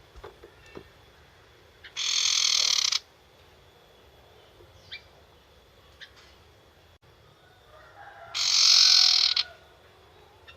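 Young wild sirtu bird giving two harsh hissing screeches, each about a second long, the second louder, with a few faint ticks and clicks between them.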